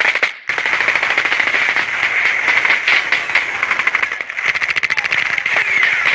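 Rapid automatic gunfire: a machine gun firing continuously, with a short break about half a second in.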